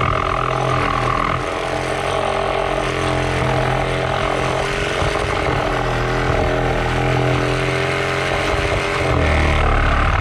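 DeWalt 20V cordless reciprocating saw running under load, its Diablo carbide-tipped demolition blade cutting through a deck board studded with screws. The steady motor-and-blade note holds throughout, then turns deeper about nine seconds in.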